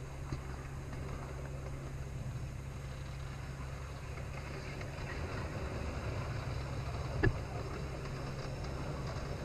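Kiddie train ride running steadily along its track, a low steady hum with rolling rumble under it, and one sharp clack about seven seconds in.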